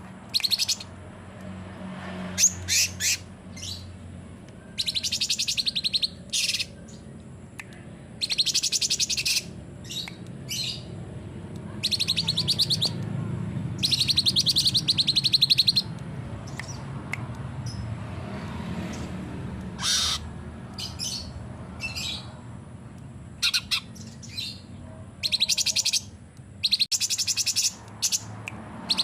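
Cucak cungkok songbird singing loud, very rapid rattling trills in repeated bursts of one to four seconds, the longest about twelve seconds in, with short chirps between bursts.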